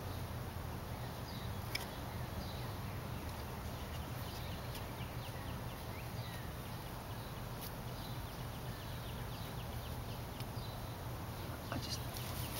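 Outdoor ambience: many faint, short bird chirps over a steady low rumble, with a few faint clicks.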